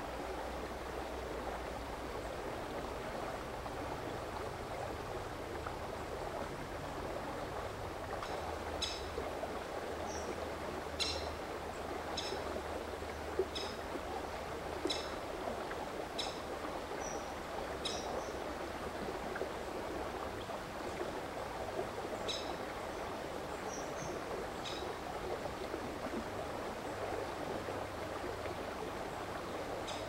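Rocky mountain stream flowing steadily, with a series of about a dozen short, high bird calls, roughly one a second, starting about eight seconds in and ending about five seconds before the end.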